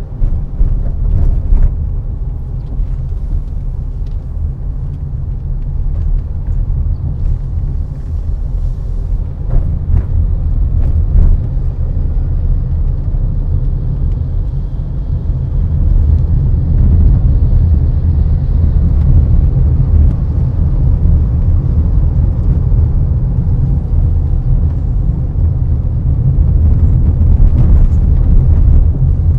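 Car on the move: a steady low rumble of engine and tyres on the road, with a few short knocks from bumps. It grows a little louder about halfway through.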